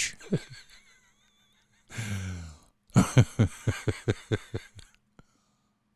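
A man's voice sighs, then laughs in a run of short chuckles, about five a second.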